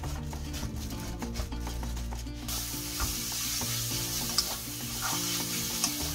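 Blanched fleabane greens with green onion and garlic sizzling in perilla oil in a frying pan while being stirred and tossed with wooden spoons. The sizzle grows louder about two and a half seconds in.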